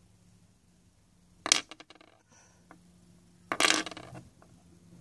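Small plastic football figures clattering onto a wooden tabletop: one sharp clack with a few small rattles about a second and a half in, then a louder half-second clatter as figures are knocked over.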